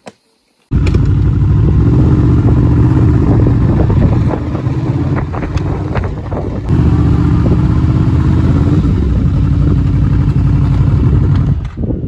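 An engine running loud and close, starting abruptly just under a second in, easing off briefly midway, then cutting off suddenly near the end.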